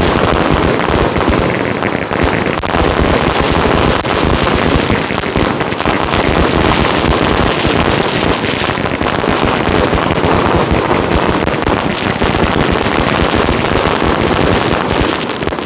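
A 375-shot 'Magic Lights' firework cake firing colour shots and salutes in a rapid, unbroken barrage of bangs and crackle, thinning out right at the end.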